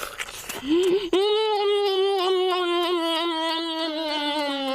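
A boy's voice holds one long, drawn-out moaning note for about three and a half seconds, sliding slowly down in pitch, as he bites and tears at roasted meat. A short burst of noise comes just before it, at the start.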